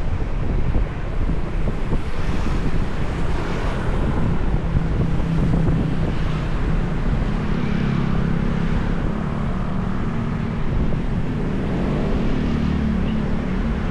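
Wind rushing over the microphone, mixed with steady road-traffic noise; from about six seconds in a steady engine hum rises above the rumble.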